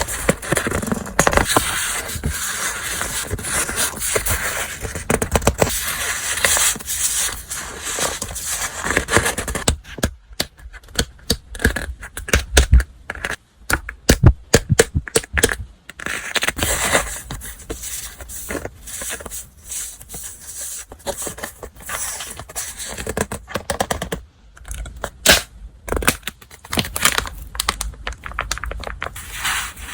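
Stationery being unpacked and handled by hand: paper and wrapping rustling and crinkling, with a run of sharp taps and clicks about ten seconds in.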